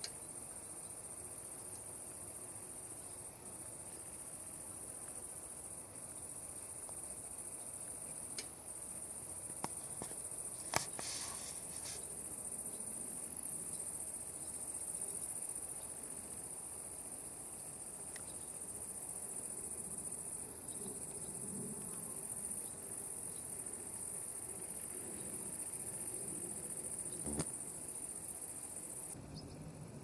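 Meadow insects chirring in a steady high-pitched chorus that cuts off suddenly near the end, with a few faint clicks around the middle.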